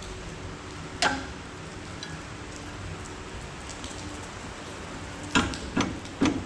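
Steady rain falling, with a single sharp knock about a second in and a quick run of three knocks near the end, from metal parts being handled while the stump grinder's cutter teeth are changed.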